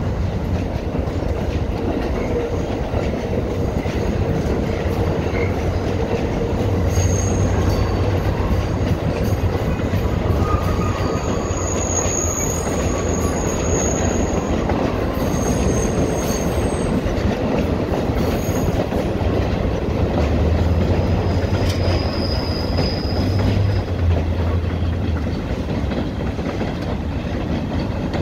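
R68 subway train running along curved track into a tunnel, its wheels rumbling steadily. High-pitched wheel squeal comes and goes several times through the middle.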